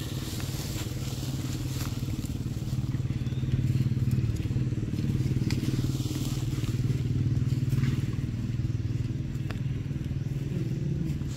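A small engine running steadily as a low drone, with scattered faint crackles of dry leaves.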